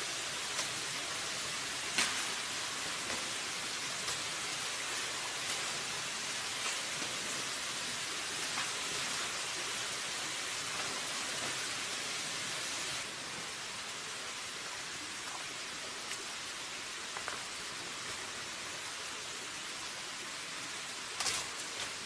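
Steady hiss of outdoor background noise, a rain-like wash that drops slightly about halfway through, with a few light knocks as wooden stakes are handled in the soil.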